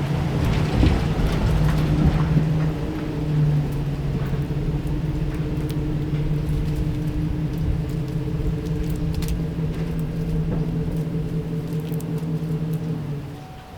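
An engine running with a steady low hum that stops shortly before the end, with a few faint scattered ticks over it.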